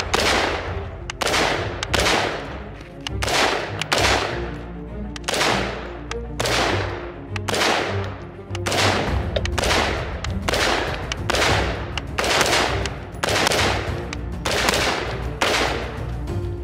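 Music with a heavy, steady beat: sharp, gunshot-like hits about every two-thirds of a second over a sustained bass line.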